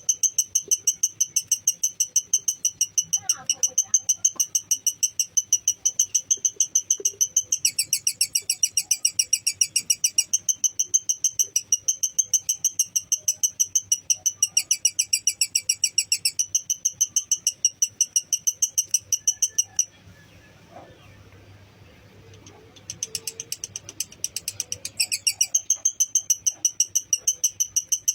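Lovebird giving its long 'ngekek' chattering call: a fast train of high, shrill chirps, about four a second. It breaks off for about three seconds about two-thirds of the way through, then starts again.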